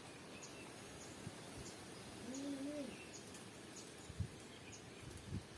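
Faint birdsong: a short high chirp repeating about every half second, with one low cooing call a little past two seconds in. Two soft low knocks come near the end.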